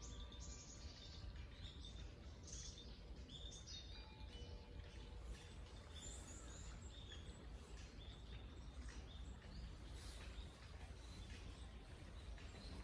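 Small birds chirping now and then over a steady low background rumble, in the open air. The last ringing of the wind chimes dies away in the first second.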